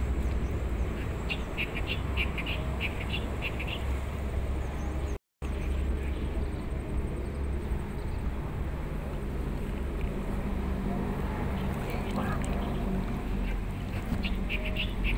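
A steady low outdoor rumble, with a rapid run of short, high animal calls twice: for a few seconds near the start and again at the end. The sound drops out completely for a moment about five seconds in.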